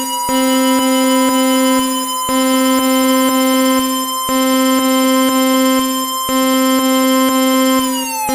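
Synthesized emergency alert tone: a loud, steady electronic chord that breaks off briefly about every two seconds, with a higher tone slowly rising. Near the end the tones start gliding down like a siren.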